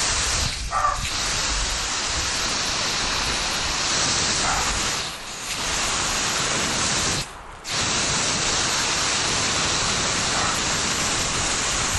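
Water spraying from a garden hose nozzle onto plants, a steady hiss that briefly dips or cuts out three times.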